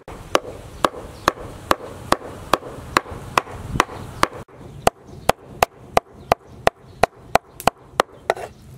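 Large knife chopping on a wooden cutting board, mincing red chilies and fish into a paste: steady, evenly spaced chops, about two to three a second.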